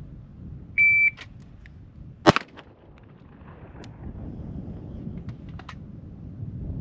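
Shot timer's start beep, a steady high tone lasting about a third of a second, then about a second and a half later a single shot from a Springfield Armory Prodigy pistol drawn from the holster. A few faint clicks follow a few seconds later.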